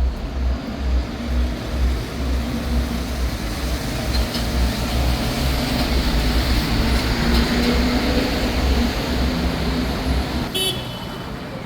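City street traffic: a vehicle passes close by, its noise swelling and then easing off, over an irregular low rumble. A brief high-pitched sound comes near the end.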